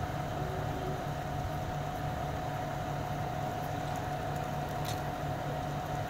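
Truck-mounted crane's engine running steadily, a constant drone with a steady high whine over it.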